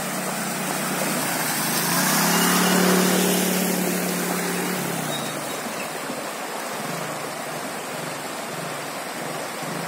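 Floodwater rushing fast across a submerged road. A motorcycle engine running as the bike rides through the water is heard from about two seconds in, loudest around three seconds, and fades out by about five seconds.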